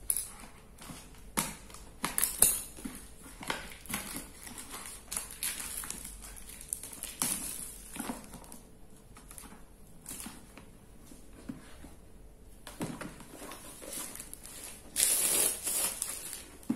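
Hands handling a cardboard gimbal box and its plastic wrapping: crinkling and rustling with light knocks and clicks, and a louder rustle about a second long near the end.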